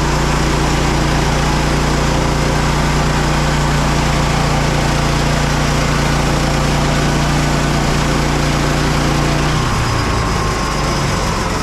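Petrol engine of a Frontier OS27 manual bandsaw mill running steadily at high speed. Near the end it slows and drops in pitch.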